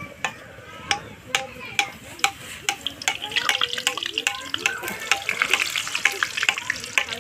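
A bhatura deep-frying in hot oil in a karahi, sizzling and crackling as a ladle bastes oil over it. Sharp pops come about twice a second at first. About three seconds in the crackle grows denser and louder as the bread puffs.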